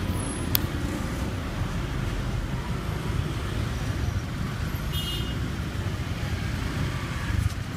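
Street traffic: cars and motor scooters creeping past in congested, bumper-to-bumper traffic, a steady mix of engine and tyre rumble. A brief high-pitched beep sounds about five seconds in.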